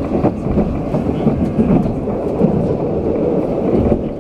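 Alstom Citadis 302 tram running at speed, heard from inside the car: a steady rumble of wheels on rails, with small clicks here and there.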